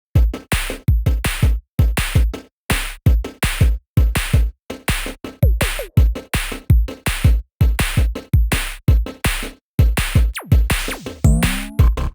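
Electronic music with a heavy drum-machine beat, about three strong hits a second with deep bass, starting suddenly out of silence.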